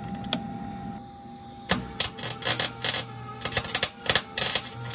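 Forney 190 MIG welder arc crackling and sputtering in a series of short welds with brief pauses, starting about a second and a half in. A low hum runs under the longer welds.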